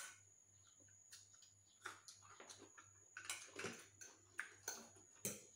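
Faint eating sounds: a fork tapping and scraping a ceramic bowl in scattered light clicks, with soft chewing, mostly from about two seconds in.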